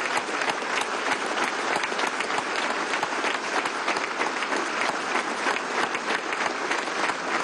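A crowd applauding steadily, many hands clapping at once without a break: a minute of applause given as a tribute in place of a minute of silence.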